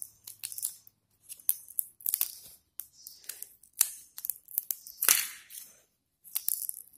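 Plastic packaging being torn and crinkled off a new 9-volt battery: irregular crackling and rustling, loudest about five seconds in.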